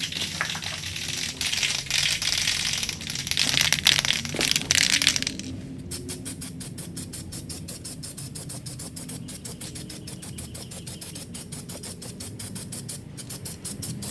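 Aerosol spray-paint can: about five seconds of spraying hiss, then a long, quick, even rattle of the can's mixing ball as it is shaken.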